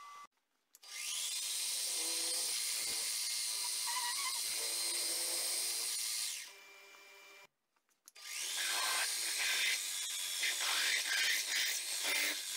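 Small bench drilling/milling machine drilling into a steel tube. The motor spins up with a rising whine and runs steadily, stops about six seconds in, then after a short silence runs again with an uneven, fluctuating sound as the bit cuts the tube.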